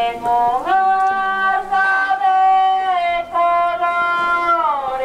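A high female voice singing slowly, holding long notes and sliding smoothly up and down between them, with a short break about a third of the way through and a slide down near the end.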